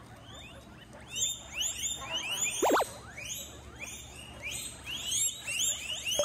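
Guinea pigs wheeking, a chorus of repeated short squealing calls that start about a second in, with one louder sweeping squeal near the middle.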